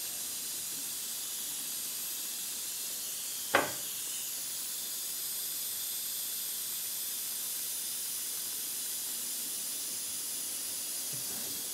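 Steady high hiss in the background, with one sharp knock about three and a half seconds in, as a plastic glue bottle is set down on a steel table saw top.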